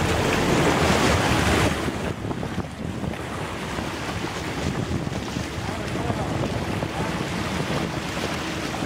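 Water rushing and splashing alongside a moving sportfishing boat, where a hooked billfish is being pulled through the surface beside the hull, with wind buffeting the microphone. The splashing is loudest for the first couple of seconds, then settles to a steady rush.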